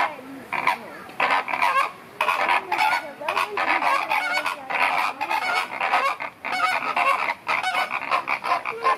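A flock of flamingos honking in chorus, many overlapping short, nasal calls one after another, as the birds stretch their necks up and flash their wings in a group courtship display.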